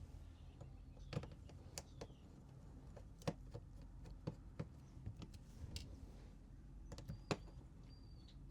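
Faint, scattered clicks and taps of small tools and parts as a smartphone is worked on during disassembly, over a low steady hum.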